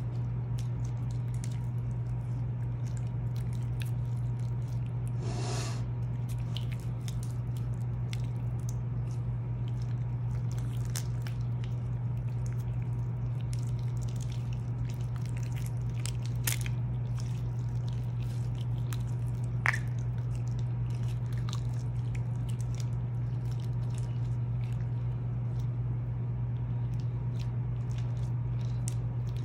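Slime being stretched, squeezed and pressed by hand: wet squishing with many small sticky clicks and crackles, and a couple of louder pops in the second half. A steady low hum runs underneath.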